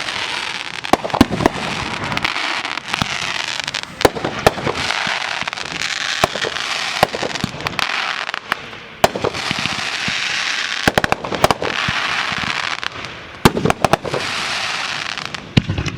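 Consumer aerial fireworks going off in quick succession: many sharp bangs scattered throughout over a near-continuous hissing crackle.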